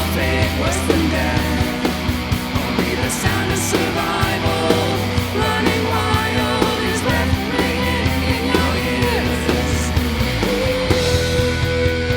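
Rock song played by a band: guitar, bass guitar and drums with a steady beat. A long held note comes in near the end.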